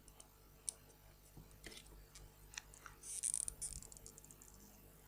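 Faint handling noise of small parts being worked by hand: scattered light clicks and ticks, with a brief high rustle about three seconds in.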